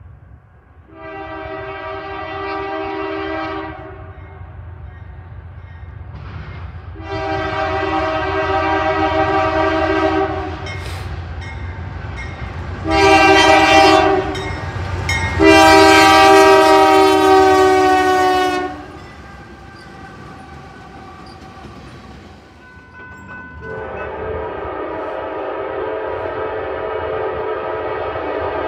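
Norfolk Southern diesel locomotive air horn sounding the grade-crossing signal: two long blasts, a short one and a long one, then another long blast begins near the end and is held, over the train's low rumble.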